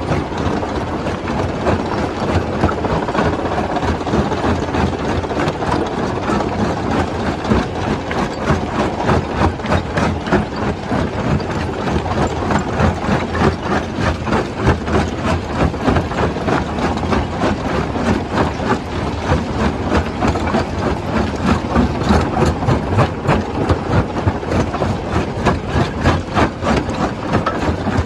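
Stone crusher running as it breaks rock: a continuous loud mechanical din packed with rapid knocks and clatter, pulsing several times a second.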